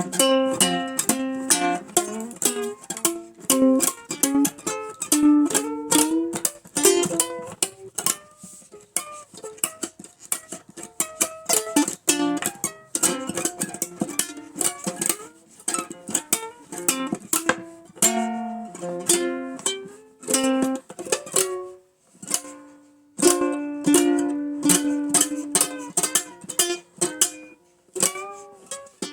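Ukulele played solo, picking an old-time blues tune: quick plucked single notes mixed with strummed chords, with a couple of brief pauses.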